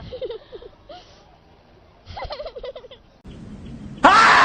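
Laughter sound-effect clips: two short bursts of quick, pitched giggling about two seconds apart. Near the end a much louder sound effect cuts in suddenly, with a rising tone.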